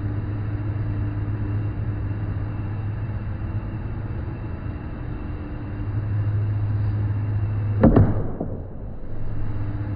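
Steady low hum with a faint constant tone, and a single knock about eight seconds in.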